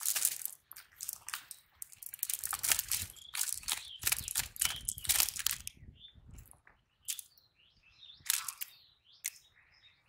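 Live fish being picked out of a cast net by hand and dropped into a plastic bucket: an irregular run of crackling, rustling and wet slapping from the net mesh and flapping fish, busiest from about two to six seconds in.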